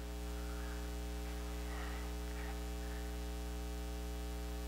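Steady electrical mains hum with a stack of evenly spaced overtones.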